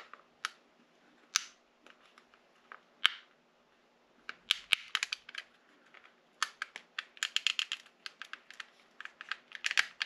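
Metal pry tool working the plastic housing of a seat heater switch apart: sharp plastic clicks and snaps as the clips are pried loose. A few single clicks at first, then busy clicking and rattling from about halfway through.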